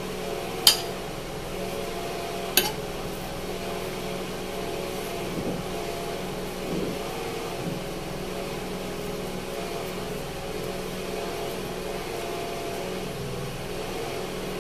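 A steady mechanical hum of room machinery with a few held tones, and two sharp clicks, the first under a second in and the second about two and a half seconds in.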